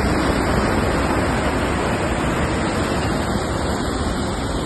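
Loud, steady rushing of the Teesta River in flood, a wide muddy torrent of water.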